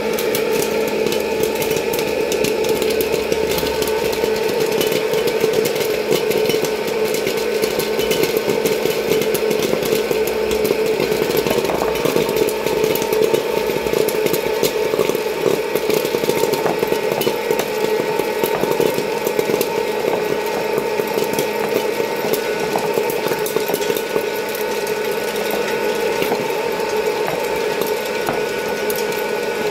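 Presto Poplite hot-air popcorn popper running: a steady fan whir with many small sharp pops from the kernels popping inside the chamber.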